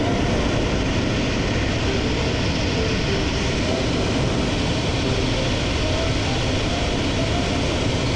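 Steady rushing noise with a low rumble from a running car.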